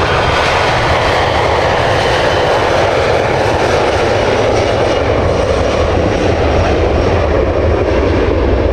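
Jet airliner engines, a loud steady roar whose highest hiss slowly dims over the second half.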